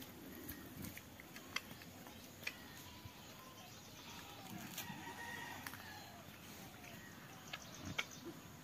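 A pig rooting in damp soil: faint snuffling with scattered small clicks and knocks, and birds calling in the background.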